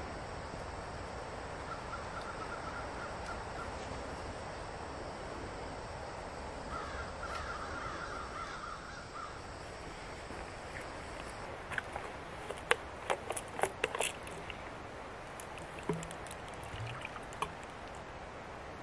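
Harsh, repeated bird calls, typical of a crow cawing, over a steady background hiss in a pine forest. After that comes a quick run of sharp clicks and knocks about twelve to fourteen seconds in, with a few lighter ones after.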